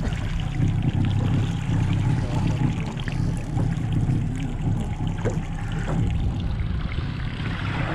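Sportfishing boat's engine running steadily, a low drone under a constant hiss of water and wind.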